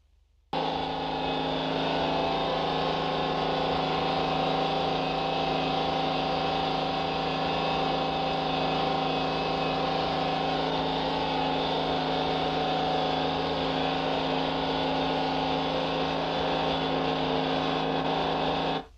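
A loud, steady drone with several held tones over a dense hiss. It cuts in abruptly about half a second in and stops abruptly just before the end.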